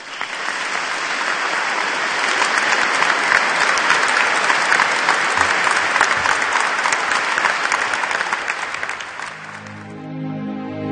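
A large audience applauding steadily, dying away about nine seconds in as soft instrumental music fades in.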